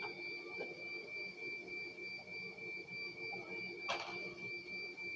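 A steady high-pitched electronic tone over a low pulsing machine hum, with a single click about four seconds in.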